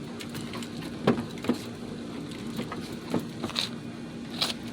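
A handful of short plastic clicks and knocks, about five, as the rear tail light housing of a Honda Odyssey minivan is fitted back into place, over a steady low hum.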